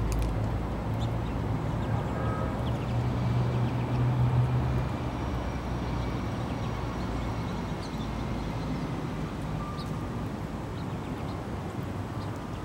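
Low rumble of city traffic, swelling about four seconds in and then easing off, with a few faint bird chirps over it.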